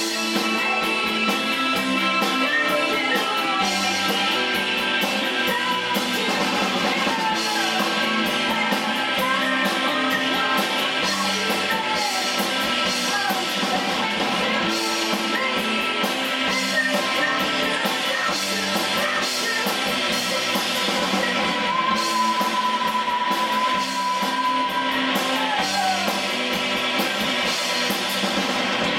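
An indie rock band playing live: two electric guitars, electric bass and a drum kit.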